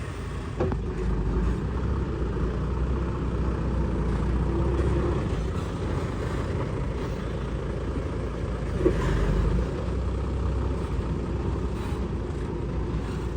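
Kubota DC70 combine harvester's diesel engine running steadily with a low rumble, with a short knock about half a second in and a brief louder clank about nine seconds in.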